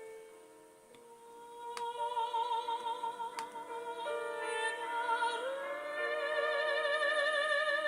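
Slow background music of long held notes with a wavering vibrato, in the manner of operatic singing or a sung melody over sustained chords. It is soft at first and swells after about two seconds.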